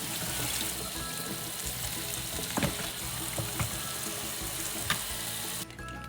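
Running water, steady and hissing, as a baby goat is rinsed in a tub, with a few light knocks; it cuts off suddenly near the end.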